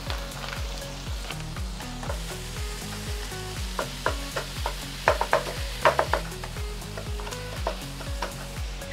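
Ground beef frying with onion and garlic in a nonstick frying pan, sizzling steadily while a wooden spoon stirs and breaks up the meat. The spoon knocks sharply against the pan a few times between about four and six seconds in. Soft background music with a steady bass beat plays underneath.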